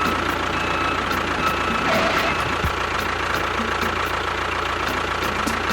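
A motor running steadily with a thin, constant whine and a dense mechanical rattle, like an engine idling.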